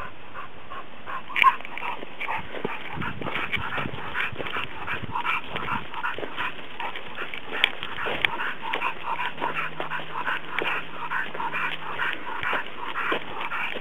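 Cocker spaniel panting in quick, rhythmic breaths while straining on its leash, with a sharp click about a second and a half in.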